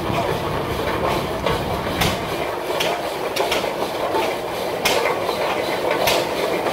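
Steam traction engine rolling slowly past, giving sharp exhaust chuffs at uneven intervals of about half a second to a second over a steady mechanical clatter.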